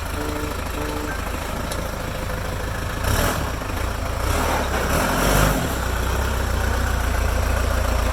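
Off-road Jeep engines running at low, idle-like speed with a steady low rumble. Two short two-tone beeps sound near the start, and the engine noise swells twice in the middle.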